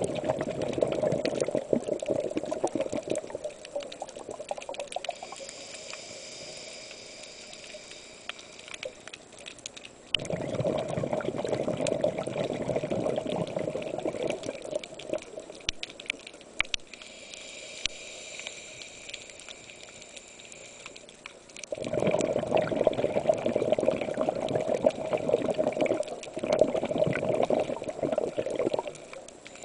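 Scuba diver breathing through a regulator underwater: three long bursts of exhaled bubbles crackling and gurgling, with a quieter hissing inhalation through the regulator between them.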